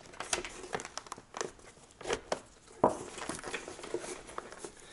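Handling noise from hands gripping and pressing a Bluetooth communicator unit onto a hard plastic snowmobile helmet shell: irregular clicks, scrapes and rustles, with one sharper knock about three seconds in.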